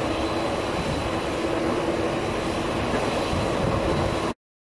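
A twin-turboprop airliner's engines and propellers running steadily, with a steady hum and a faint high whine over the noise. The sound cuts off abruptly near the end.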